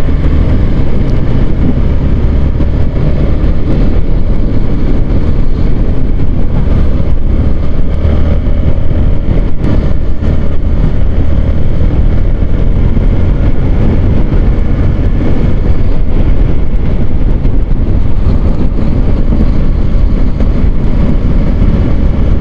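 Yamaha R15 V3's 155 cc single-cylinder engine running at steady cruising speed in sixth gear, under a loud, steady rumble of wind on the microphone.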